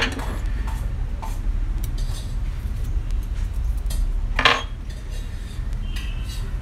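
Small metal laptop parts and tools being handled on a repair bench, with two sharp clinks, one at the start and a louder one about four and a half seconds in, plus a few faint ticks, over a steady low background rumble.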